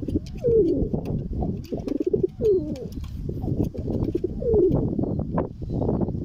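Domestic pigeons cooing: a few low calls that fall in pitch, over a steady low rumbling noise.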